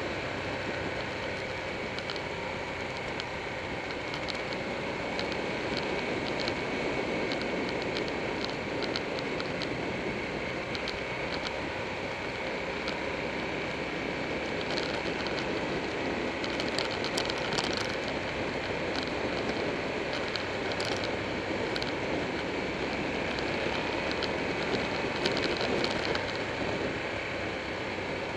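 Motorcycle riding along at steady speed: a continuous rush of wind, engine and road noise on a bike-mounted camera, with scattered light ticks now and then.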